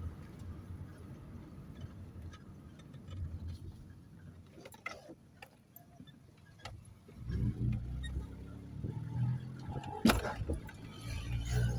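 Small rattles and clicks from inside a moving vehicle. About halfway through a low rumble comes in, and a sharp knock about ten seconds in is the loudest sound.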